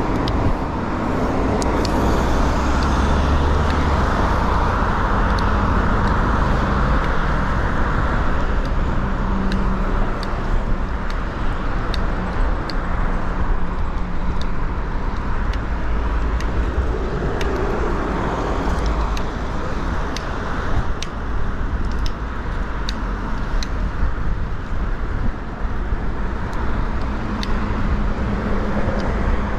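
Road traffic noise heard from a bicycle moving along a city street: a steady low rumble with a noisy haze over it and frequent sharp ticks.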